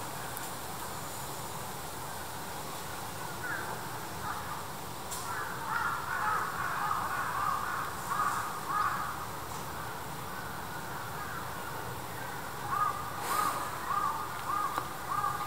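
Crows cawing in runs of short repeated calls, one run in the middle and another of about five caws near the end, over a steady low background hum.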